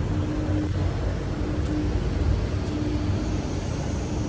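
Motor vehicle engine running close by: a steady low rumble with a hum that comes and goes.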